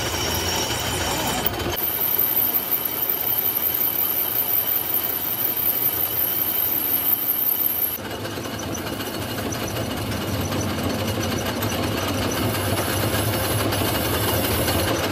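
Metal lathe running with a boring tool cutting the inside of a spinning metal ring. A high, wavering squeal from the cut sets in about two seconds in and stops abruptly about halfway through, after which the steady cutting and spindle noise carries on.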